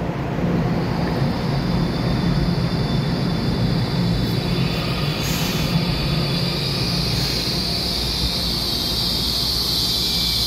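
Taiwan Railway EMU900 electric multiple unit standing in an underground station, its equipment giving a steady low hum, under a steady high whine that grows louder toward the end.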